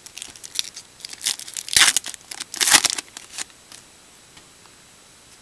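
A Topps baseball card pack's wrapper being torn open and crinkled: a run of crackling tears, loudest about two and three seconds in, that stops after about three and a half seconds.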